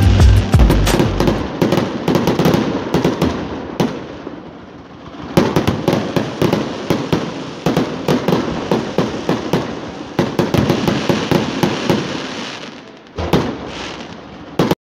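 Finale of a fireworks display: dense volleys of exploding shells and crackling. The bangs ease off about four seconds in and build again a second later. A last burst comes near the end, then the sound stops abruptly.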